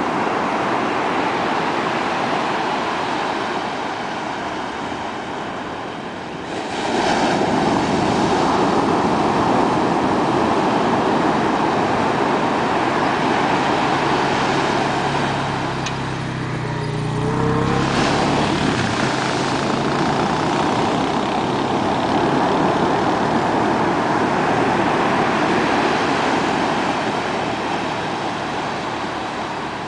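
Ocean surf breaking and washing up a sandy beach, a steady wash of noise that swells as waves come in, about six seconds in and again about eighteen seconds in. A low hum is heard briefly about halfway through.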